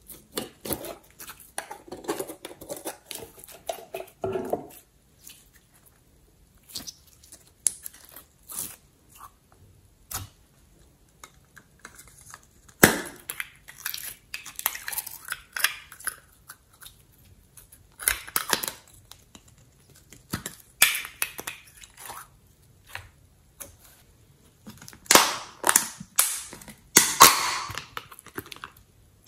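Slime being poured and squeezed out of small plastic jars and tubs into a bowl: soft wet squelching and plopping as it slides out, with sharp clicks and crinkling of the plastic containers being handled. The loudest crackly spells come in the second half.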